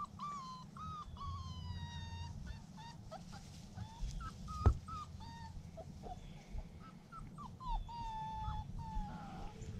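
Standard Schnauzer whimpering: a string of high, thin whines, several drawn out and falling slightly in pitch. A single sharp knock about halfway through.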